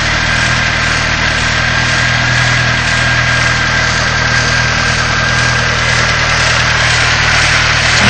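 Volkswagen Scirocco's 1.8-litre JH four-cylinder engine idling steadily, fitted with a Remus sport exhaust and a Group A (about 63 mm) pipe from the catalytic converter back.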